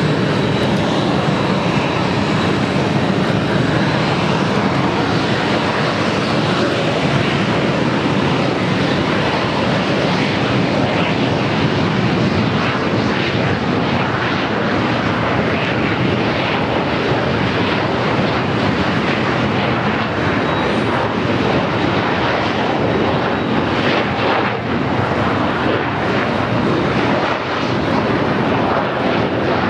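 Kawasaki T-4 jet trainers running their twin turbofan engines at high power for takeoff: a loud, steady jet noise as the jets roll down the runway and climb out.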